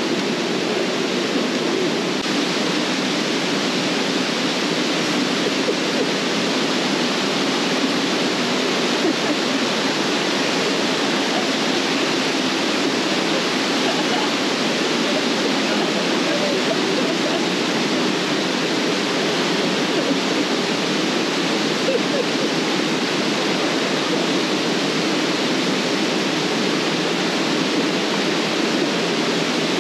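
Swollen, muddy river in flood rushing through rapids: a loud, steady rush of water that does not let up.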